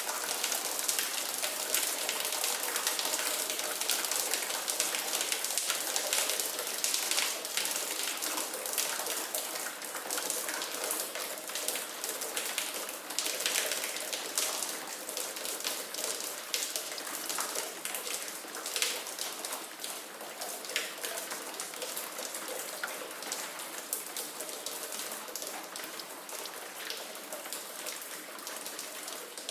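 Steady rain falling, a dense patter of many individual drops striking a surface, easing slightly towards the end.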